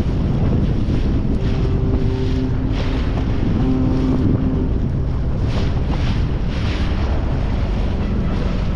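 Wind buffeting the microphone on a moving boat, with water rushing and splashing against the hull.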